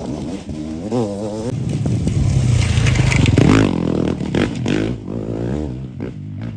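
Dirt bikes revving hard as two of them, one after the other, accelerate out of a rutted dirt corner, the engine pitch rising and falling as each rider opens the throttle. The sound fades near the end.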